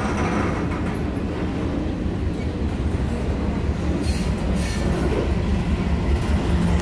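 Freight train's double-stack container cars rolling past at a grade crossing: a steady low rumble of steel wheels on the rails, with a brief higher rush about four seconds in.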